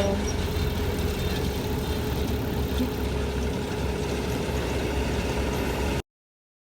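Farm machine engine running steadily with a deep rumble, cutting off abruptly about six seconds in.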